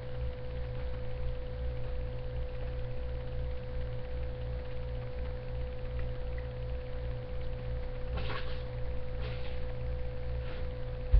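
Steady electrical hum with one constant mid-pitched tone over a low, evenly pulsing throb. A few faint soft rustles come in near the end.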